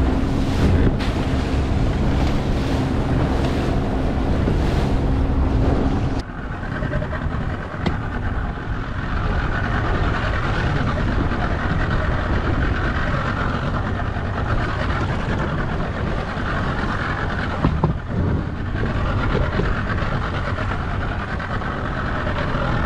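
Small skiff's outboard motor running under way, with wind rushing on the microphone. About six seconds in the engine note drops away suddenly, leaving a quieter rush of wind and water.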